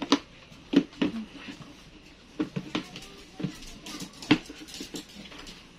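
Hard plastic knocking and clicking as a baby booster seat's tray is handled and pushed onto the seat's side slots: a handful of separate knocks, the loudest about four seconds in.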